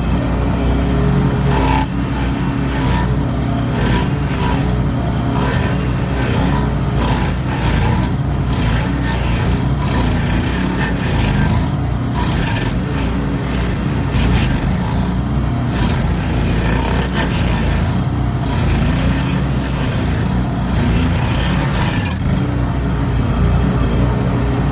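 Mower engine running steadily, with frequent short crackles throughout.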